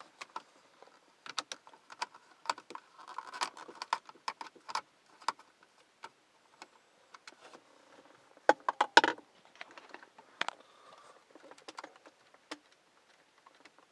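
A Phillips screwdriver working the small screws of the car's center-console trim: scattered light clicks and metallic rattles, with a short run of sharper clicks about two-thirds of the way in.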